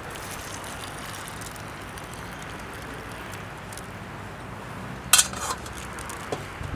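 Steady low wind noise outdoors, and one sharp clink of camp cookware or utensils about five seconds in, with a brief ring and a few faint light knocks after it.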